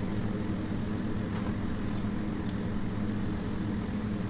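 Steady low machine hum, even and unchanging, with two faint clicks in the middle.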